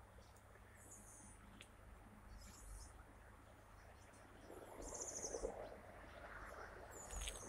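Faint, short high-pitched chirps of small birds, a few scattered calls over a low background hiss, with a soft rustle about five seconds in.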